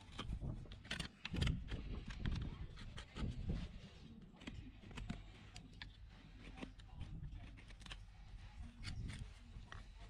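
Irregular knocks, clicks and scrapes from farrier work on a horse's hooves, with no steady rhythm.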